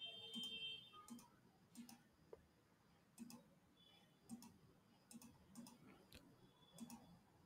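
Faint computer mouse clicks, about ten of them at irregular intervals of roughly half a second to a second, over near-silent room tone.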